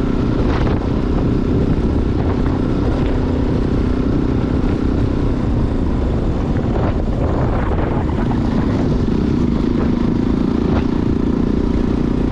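Motorcycle engine running steadily under way, with a continuous rush of road and wind noise.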